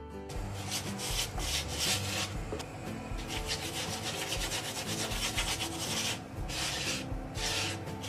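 A spatula scraping and rubbing over a puran poli flatbread on a flat griddle pan (tawa) as it is pressed and spread with ghee. The strokes repeat at about two a second.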